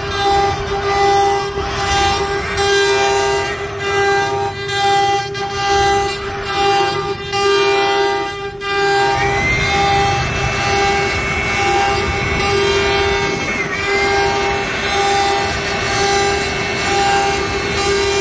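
CNC router spindle whining at a steady pitch while its bit clears a pocket in a wooden door panel. The cutting noise swells and eases about once a second with each back-and-forth pass. A second, higher whine comes in about halfway through and holds for several seconds.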